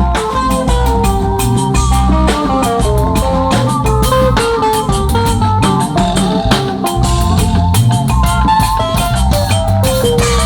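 Drum kit playing busy fills and runs with a band track: a stepping melody line and bass under dense, rapid drum hits.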